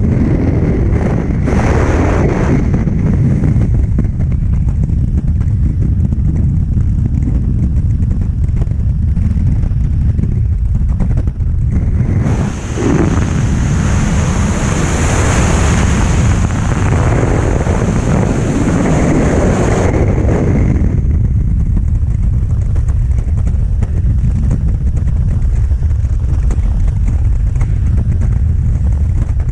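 Freefall airflow buffeting a skydiving camera's microphone: a loud, steady rush of wind, heaviest in the low end. For several seconds in the middle it turns brighter and hissier.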